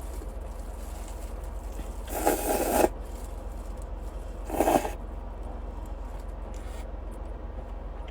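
Two noisy slurps of instant noodles, the first close to a second long, the second shorter, over a steady low hum.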